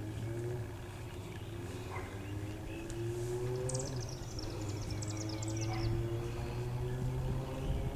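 A steady low motor hum with slowly rising drone tones over it. From about four seconds in, a bird sings a quick run of high chirps for nearly two seconds.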